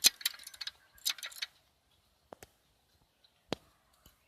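Metallic clicks from the ratchet mechanism of a Matrix 52225 hand lever winch as it is worked: the spring-loaded pawl snaps over the double ratchet wheel. A quick run of clicks comes in the first second and a half, then three single clicks spaced out after it.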